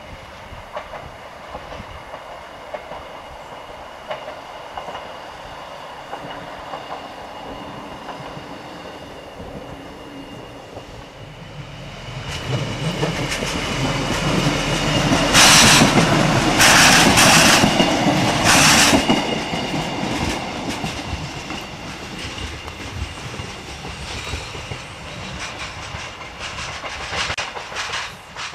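DB class 628 diesel railcar running over a set of points and crossings, its wheels clattering across the joints. The sound builds to a loud peak about halfway through, with three sharp clatters, then eases off into scattered clicking. The railcar makes its typical rattling over the points, whose cause is not known.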